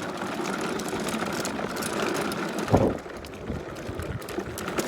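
Gas leaf blower's small engine running steadily. A sharp knock comes just past halfway, and the sound is quieter after it.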